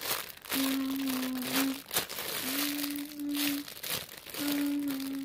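Clear plastic bag crinkling and rustling as it is handled around squishy foam toys. Three times, a sustained low tone, each about a second long, sounds over the crinkling.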